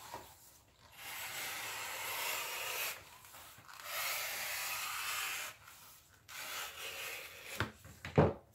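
A wooden strap cutter's blade slicing a 1-inch strap from thick English bridle leather as the leather is drawn through it, a rasping rub in two long pulls and a shorter one. A couple of sharp knocks near the end.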